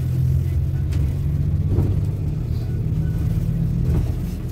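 Steady low engine and road rumble of a moving road vehicle, heard from inside it, easing off near the end.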